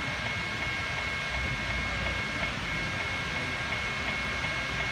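N scale model container train of double-stack well cars rolling steadily along the track, under a steady high whine that breaks off briefly about halfway.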